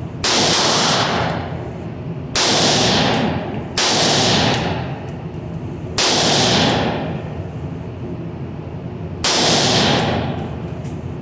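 Five single shots from a 300 Blackout AR-15 pistol at uneven intervals, each a sharp loud crack with a long echoing decay.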